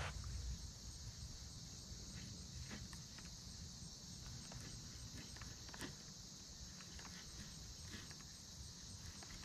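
Steady high-pitched chorus of insects such as crickets, with a few soft clicks and a low rumble from handling the baitcasting rod and reel.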